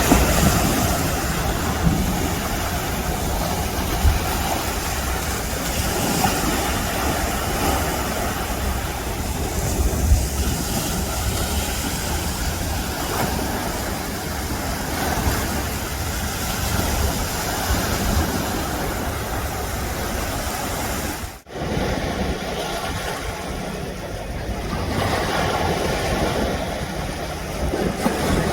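Sea surf breaking, with wind buffeting the microphone as a steady rumbling rush; the sound drops out for an instant about three-quarters of the way through.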